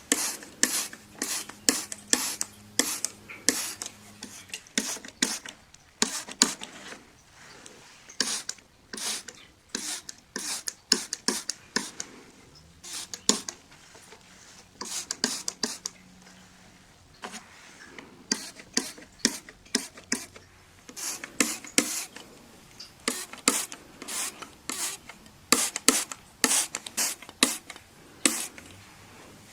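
Window glass being wiped clean by hand: quick back-and-forth rubbing strokes, about three a second, in runs with short pauses between.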